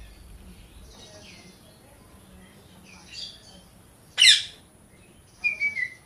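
Indian ringneck parrot calling: a softer call about three seconds in, then one loud, sharp screech a second later, and a quick run of short calls falling in pitch near the end.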